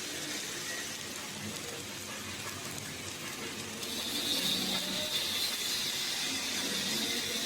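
Welding arc hissing and crackling over workshop background noise; the hiss gets louder about halfway through.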